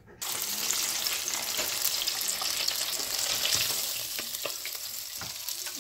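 Battered fish fillets frying in hot oil in a home deep fryer: a steady sizzling hiss with scattered pops and crackles, easing slightly near the end.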